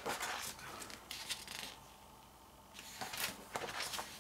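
Pages of a photobook being turned and handled: several short paper rustles, with a quiet pause of about a second in the middle.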